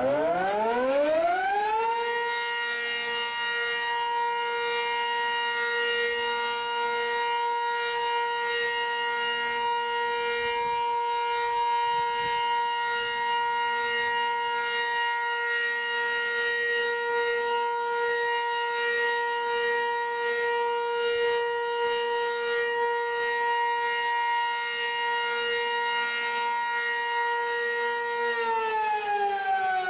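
Civil defense siren winding up over the first couple of seconds to a steady high tone with many overtones, holding that pitch unchanged, then starting to wind down with falling pitch near the end.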